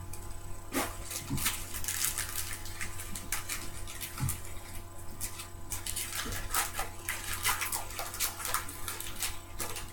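Trading cards being handled: a continuous run of short scrapes and flicks as cards slide against each other while a pack is flipped through by hand, over a steady low electrical hum.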